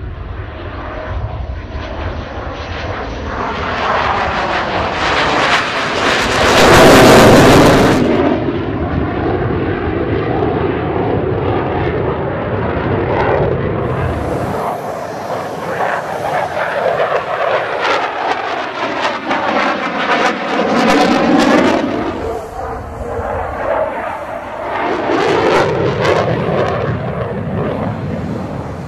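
HAL Tejas fighter's General Electric F404 turbofan heard during display flying. A loud, continuous jet noise swells strongly about seven seconds in and again around twenty-one seconds, gliding in pitch as the jet passes.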